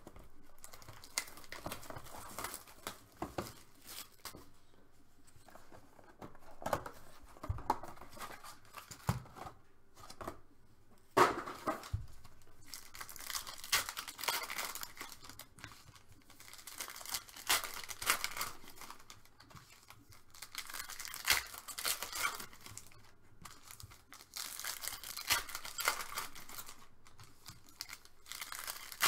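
Foil wrappers of Panini Elite Extra Edition baseball card packs being torn open and crinkled by hand, in crackly clusters with quieter pauses, and the cards inside handled and shuffled. One sharp click stands out about eleven seconds in.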